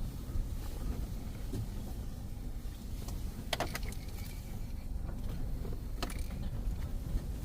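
A car moving slowly with a low, steady engine sound, and two short sharp clicks or snaps about three and a half and six seconds in.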